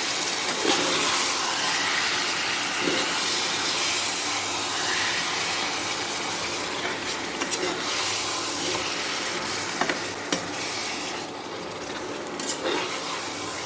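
Marinated chicken sizzling in hot oil in a kadai, a steady hiss throughout. A spatula stirs and turns the pieces, with a few brief scraping clicks.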